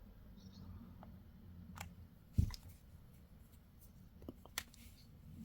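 Faint handling of a small gel polish bottle and its packaging: a few light clicks and one soft knock about two and a half seconds in, over a low steady room hum.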